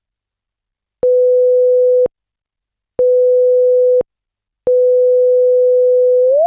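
Generated sine-wave test tone: two one-second beeps at a steady mid pitch, each starting and stopping with a small click and cutting off dry with no echo, then a third tone that holds on and begins gliding upward in pitch near the end.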